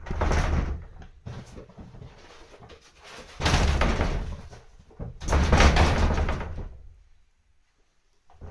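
Paper-covered shoji sliding door rattling and banging in its frame in three loud bursts of about a second each, with fainter rattling between, as kittens jump at it and tear its paper.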